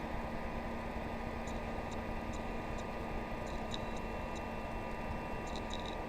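Steady low hiss with a faint constant hum, dotted with a few faint high ticks.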